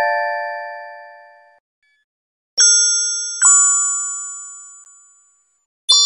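Emergency alert chime: bell-like tones struck and left to ring out, each fading over about two seconds. One is dying away at the start, two more sound close together a little under halfway through, and another strikes near the end.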